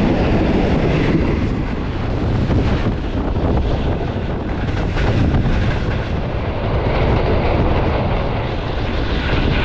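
Passenger train running at high speed, heard from beside the moving coach: a steady, loud rush of wheels on rails and air.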